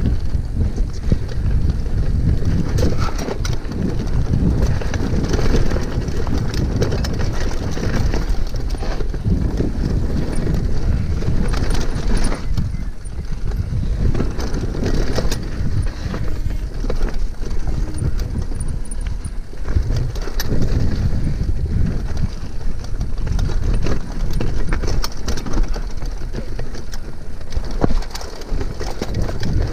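Mountain bike riding fast down a dirt trail: wind buffeting the microphone and the tyres rumbling over the ground, with frequent clicks and rattles from the bike as it hits bumps.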